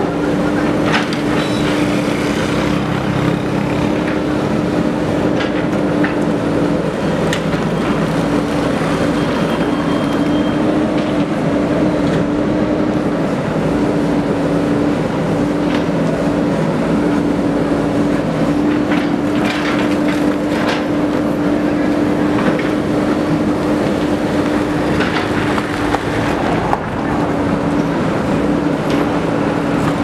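JCB 3DX backhoe loader's diesel engine running steadily under digging load, with a steady tone running through it and a few faint knocks.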